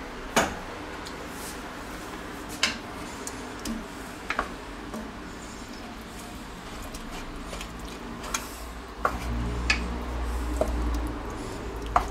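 A wooden spoon stirring a thick, creamy sauce in an enamelled pot, with a handful of sharp knocks of the spoon against the pot. About nine seconds in, the stirring gets louder and deeper.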